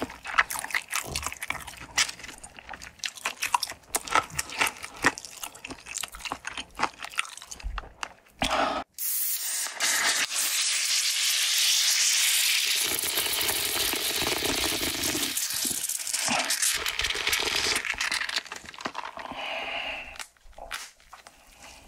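Close-miked crunching and chewing of crispy fried chicken, many sharp crunches for about eight seconds. Then a steady hiss lasting about ten seconds, louder than the crunching, which fades near the end.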